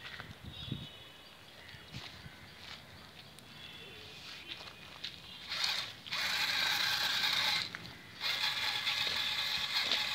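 Small wheeled robot's drive motors whirring with a high gear whine as it drives over gravel. The whine starts about halfway in, cuts out briefly, then starts again.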